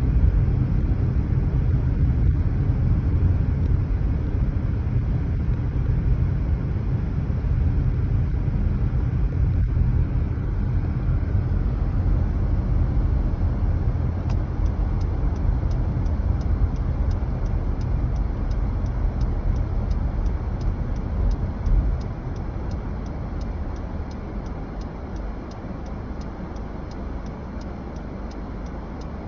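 Car driving, heard from inside: a steady low road and engine rumble. From about halfway a regular ticking starts, roughly three ticks a second. The rumble drops noticeably in level about three quarters of the way through.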